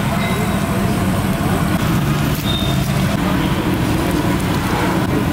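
Battered bajji fritters deep-frying in a large kadai of hot oil, sizzling steadily, over a constant low rumble of street traffic.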